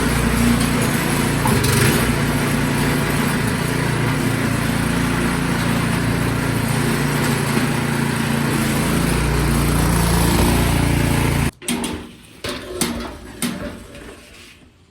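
Craftsman snowblower's small engine running steadily after a start-up test, its carburetor freshly cleaned so that it now runs. The engine sound cuts off abruptly about eleven and a half seconds in, followed by a few scattered knocks and clicks.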